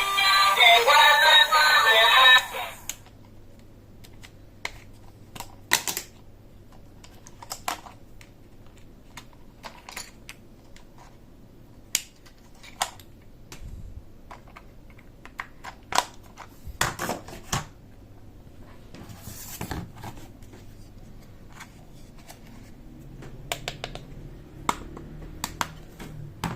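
Scattered light clicks and taps from Thomas & Friends toy pieces being handled, some in quick little clusters. Background music plays for the first two seconds or so, then stops.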